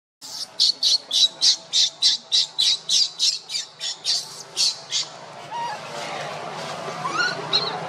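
Baby macaque crying in distress, a rapid run of short high-pitched squeals about three a second, as an adult pins it on its back; the squeals stop about five seconds in, followed by a few fainter rising calls.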